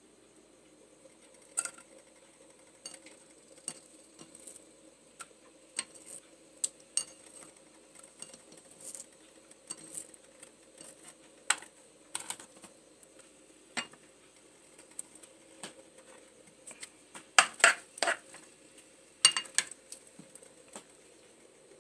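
Metal utensil clinking and scraping against a frying pan and plate as garlic and shallots are stirred into oil. Scattered taps run throughout, with a cluster of louder clanks about three-quarters of the way through.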